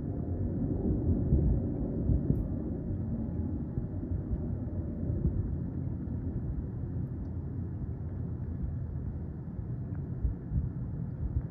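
Low rumble of a jet aircraft's engines passing overhead, loudest about a second in and slowly fading.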